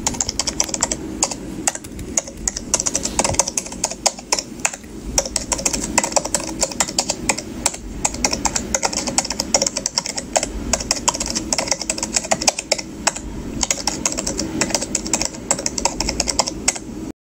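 Computer-keyboard typing sound effect: a fast, unbroken stream of key clicks accompanying text typed out on screen, cutting off suddenly near the end.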